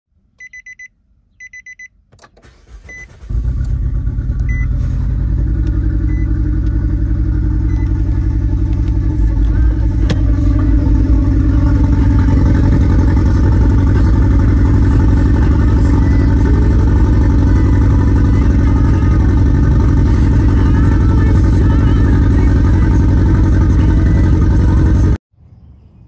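A car engine started by push-button, running with its catalytic converter missing from the exhaust: a few short beeps, a brief build-up as it cranks, then it catches about three seconds in and idles with a loud, hoarse, low rumble from the open exhaust. The sound cuts off suddenly near the end.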